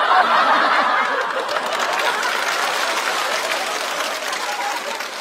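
Studio audience laughing and applauding, loudest at the start and slowly dying down.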